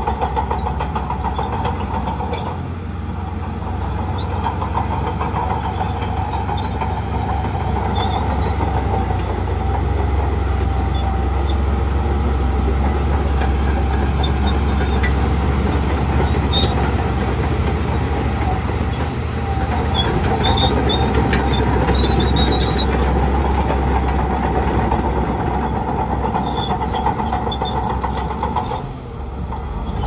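Shantui crawler bulldozer's diesel engine running steadily as it pushes sand, with its steel tracks rattling and giving small scattered squeaks. The sound dips briefly near the end.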